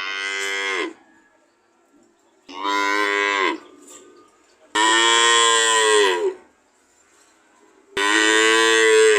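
A cow mooing four times, each moo about a second long and dropping in pitch as it ends.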